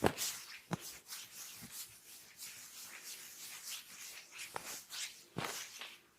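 Hands massaging oiled skin: a slick, hissy rubbing with a few sharp smacks of the hands on the body, the loudest right at the start, another just before a second in, and two more near the end.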